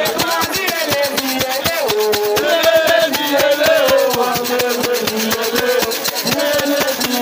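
Voices singing a chant over fast, dense percussion with a rattling, shaker-like beat.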